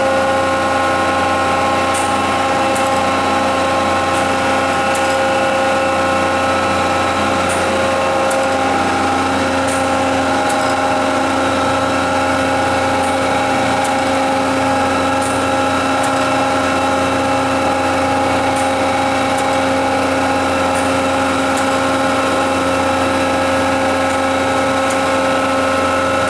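Arter horizontal-spindle rotary surface grinder running through an auto-feed grinding cycle with coolant on: a steady machine hum with several constant whining tones from the wheel spindle, rotary chuck and hydraulics, and faint scattered ticks.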